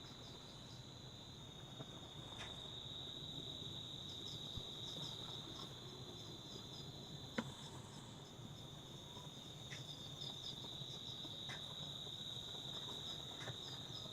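Insects trilling in one high, unbroken note, faint, with small chirps above it and a single sharp click about seven seconds in.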